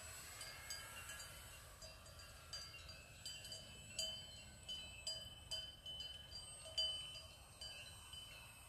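Cowbells on grazing cattle ringing irregularly, a few short metallic rings a second.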